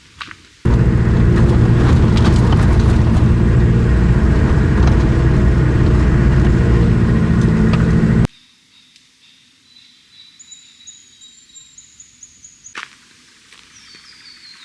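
A vehicle engine runs loudly for about seven seconds, starting and stopping abruptly. Then, in quiet, birds give thin high whistled calls, with a falling run of notes near the end and a single sharp tap shortly before.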